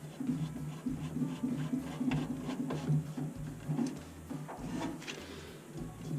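Scattered light clicks and rubbing of metal parts as a replacement circulator pump and its washer are set onto the fittings of a Navien NCB-240 combi boiler, over a low pitched sound that comes and goes, likely background music.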